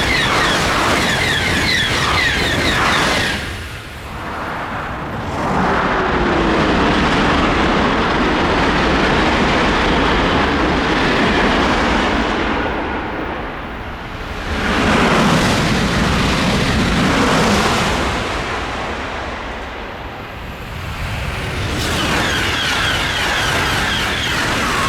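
TGV high-speed train passing at speed: a loud, steady rushing roar that swells and eases a few times, dipping briefly about four seconds in and again around fourteen and twenty seconds in.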